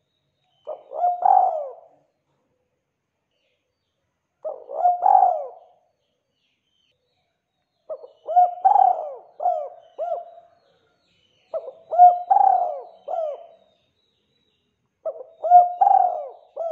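Spotted dove cooing: five phrases about three and a half seconds apart, the first two short and the last three longer, with several coos each.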